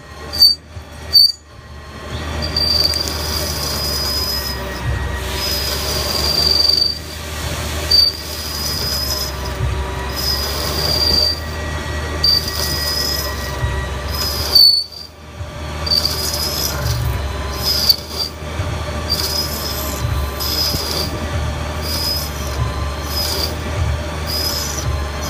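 Button turning tool on a Haas SL10 CNC lathe squealing in a high pitch as it rough-cuts the spinning workpiece. The squeal opens as a few short chirps, then comes in stretches of a second or two, breaks off briefly about fifteen seconds in, and runs over the lathe's steady hum. The squeal comes from a feed rate set too slow; it should have been 0.02 inch per revolution.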